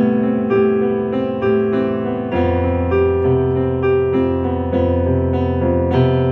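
Portable arranger keyboard played in a piano voice with both hands: a melody over sustained chords and held bass notes, the notes changing about once or twice a second.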